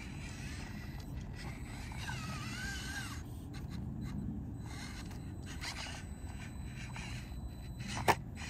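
Small electric motor and gear drive of an RC rock crawler whining, wavering in pitch for about a second as it works at a steep rock line, over a steady low rumble; one sharp click near the end.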